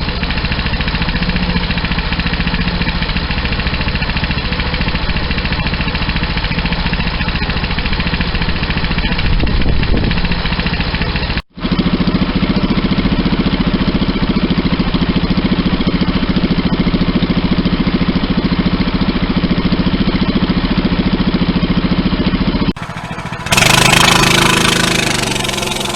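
Coleman CT200U mini bike's 6.5-horsepower single-cylinder engine running through an aftermarket header pipe instead of the stock muffler, mostly idling steadily, with a brief rise about ten seconds in. Near the end a louder take of the same bike, fading away.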